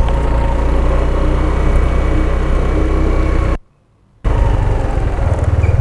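Motorcycle engine running with a steady low rumble. The sound cuts out suddenly for about half a second a little past halfway, then resumes.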